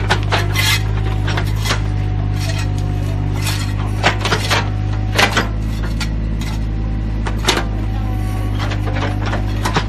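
Mini excavator's engine running steadily, with repeated short scrapes and clanks as its steel bucket digs into soil and broken brick.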